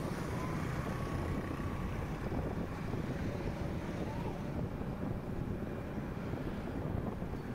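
Steady road-traffic noise from vehicles on a highway, with wind buffeting the microphone.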